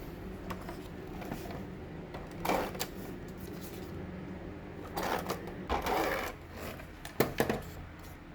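Handling of journal-making supplies: a few short rustling, scraping sounds and then two sharp clicks, over a steady low hum.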